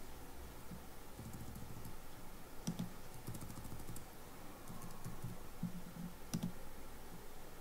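Irregular clicks and taps of a computer keyboard and mouse, with dull knocks under the two sharpest clicks, about two and a half seconds in and near the end.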